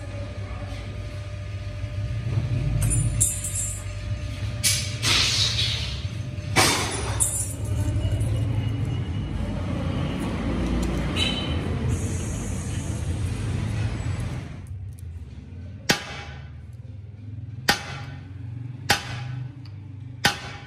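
A workshop machine motor hums steadily, with metal clinks and knocks. It then falls quieter, and from about 15 seconds in a hand-lever press makes four sharp clacks, a second or so apart, as it presses the stainless steel strip.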